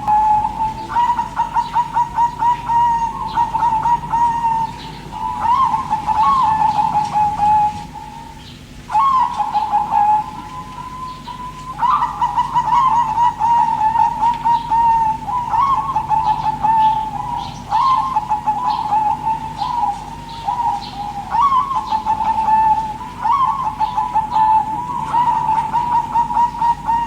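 Zebra doves (perkutut) cooing: runs of rolling, warbling coo notes follow one another almost without a break, pausing briefly about eight and eleven seconds in.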